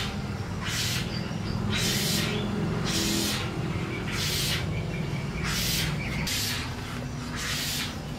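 Birds calling, with a high rustling hiss that comes back roughly once a second.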